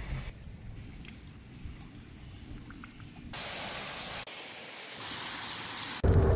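Rushing water from a rain-swollen stream, then a muddy waterfall pouring over a rock ledge with a louder, hissier spray, in short cuts that change the sound abruptly. Near the end it switches to the road noise of a car driving on a wet road.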